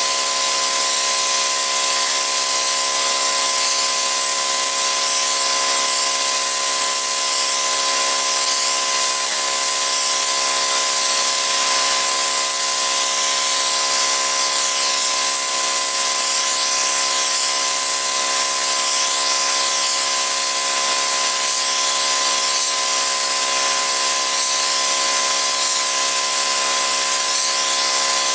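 Electric pressure washer running with a wet sandblasting nozzle, blasting a water-and-sand jet onto a rusty metal drum. The result is a loud, constant hiss with a steady whine from the machine underneath.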